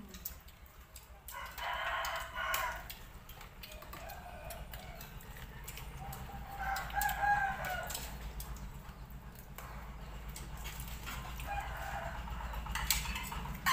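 A rooster crowing among chickens, three calls about five seconds apart, the clearest about seven seconds in.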